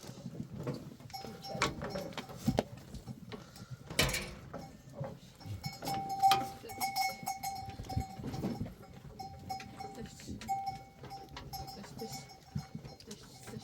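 Livestock bells ringing on and off as a herd of animals moves, with scattered knocks and a sharp knock about four seconds in.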